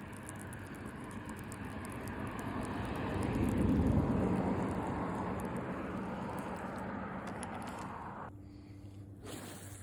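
A vehicle passing by: a broad rushing sound that swells to a peak about four seconds in and fades away, over a steady low hum. It cuts off abruptly about eight seconds in, followed by a short burst of noise near the end.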